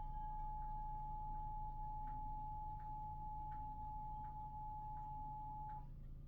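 Emergency Alert System attention tone for a Required Weekly Test: one steady, unwavering tone that cuts off suddenly near the end.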